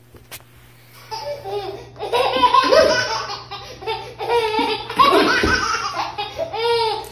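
Baby laughing hard in repeated bursts of giggles and belly laughs, starting about a second in.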